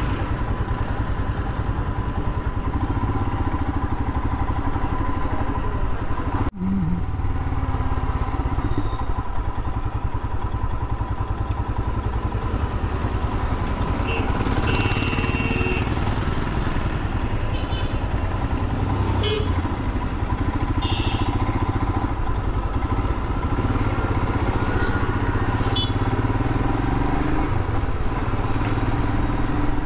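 Royal Enfield Himalayan's single-cylinder engine running steadily as the motorcycle rides through city traffic, heard from the rider's seat.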